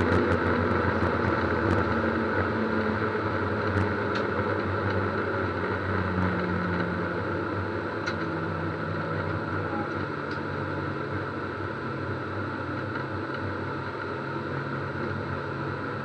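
Ford Puma cup car's engine heard from inside the stripped cabin, running at low, fairly steady revs and slowly getting quieter.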